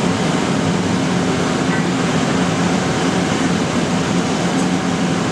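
Skew rolling mill for steel balls running, its motor-driven universal-joint spindles turning the rolls with a steady, loud mechanical drone and low hum while hot steel is rolled.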